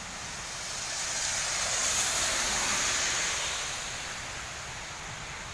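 Steady rain hiss on a wet road, with a vehicle passing on the wet tarmac: a tyre-spray whoosh that swells to a peak about two seconds in and fades away by about four and a half seconds.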